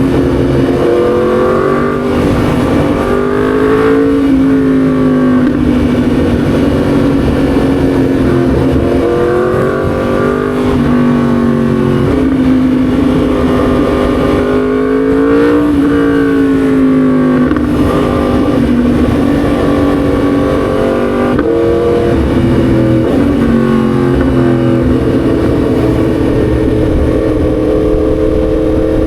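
Yamaha MT-10 SP's crossplane inline-four engine under way, its note climbing and dropping several times as the rider accelerates and eases off, over a steady rush of road and wind noise.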